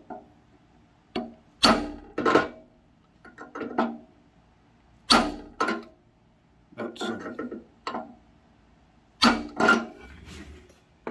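Sharp metal knocks, mostly in pairs, each ringing briefly: the seal-driving tool on a Dybvig seed cleaner's bowl being struck to seat the bearing seal.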